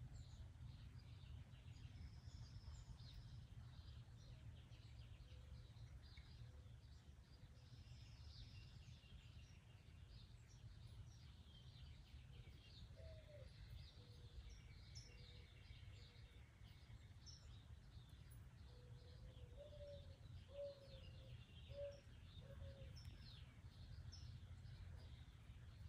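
Faint birds chirping, many short high calls scattered throughout, over a steady low background rumble. A few short lower notes come about halfway through and again in a quick run in the last third.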